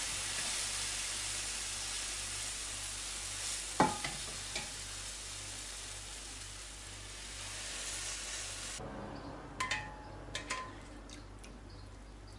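Warm sugar syrup ladled over hot baked semolina-coated pastries in a glass dish, hissing and sizzling as it soaks in; the hiss cuts off abruptly about nine seconds in. A metal ladle gives one sharp ringing clink about four seconds in and a few lighter clinks near the end.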